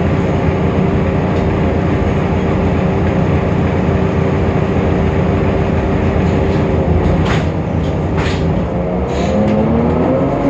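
Temsa Avenue LF city bus with a DAF PR228 six-cylinder diesel and ZF Ecolife automatic gearbox, running with a steady whine. A few short hisses come around seven to eight seconds in, and near the end a rising whine as the bus speeds up. The uploader finds this bus's sound strange, unlike the normal one.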